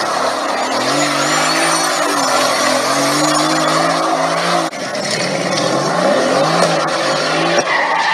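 Mercedes-AMG GT's twin-turbo V8 revving up and down while its rear tyres squeal and spin in a smoky burnout, with a short break in the sound about halfway through.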